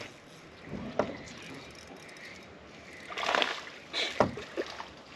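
Small bass splashing at the water's surface as it is reeled in to the boat: a brief splash about a second in, then a longer burst of splashing and a few sharp knocks between about three and four and a half seconds.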